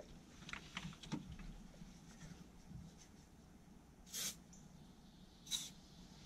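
Two short hissing sprays from an aerosol can aimed at the engine, about four and five and a half seconds in, after a few light clicks and knocks of hands handling parts.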